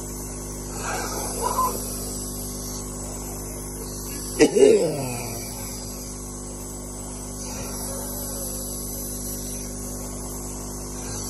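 Nebulizer compressor running with a steady hum while albuterol is inhaled through the mouthpiece. About four and a half seconds in comes one loud, short, forced breath with voice in it, falling in pitch.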